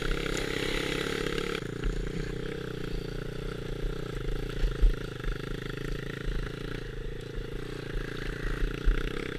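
125cc pit bike engine running while riding a rough off-road track, with rattling and knocks from the bike over the bumps and deep buffeting on the microphone; a sharper knock stands out about five seconds in.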